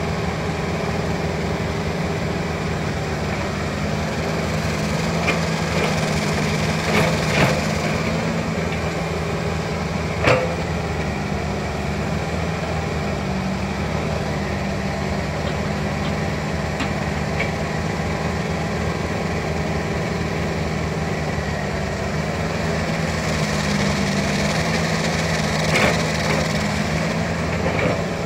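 Excavator's diesel engine running steadily under working load, with a few sharp knocks from the machine at work, the loudest about ten seconds in.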